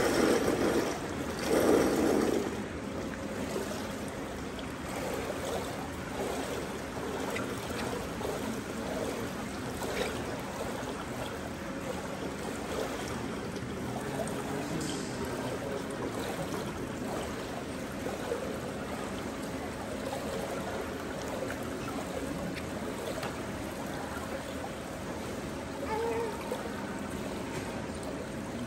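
Indoor swimming pool ambience: steady water trickling and lapping, with louder noise in the first couple of seconds.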